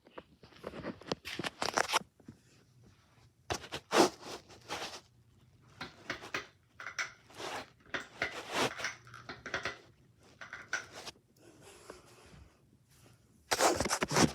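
Irregular scraping and rustling noises in short clusters, the loudest about four seconds in and again near the end, over a faint steady low hum.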